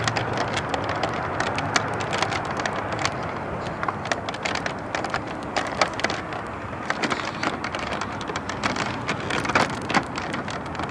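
Rustling and irregular crackling clicks from a handheld phone's microphone being handled while walking, mixed with footsteps on asphalt.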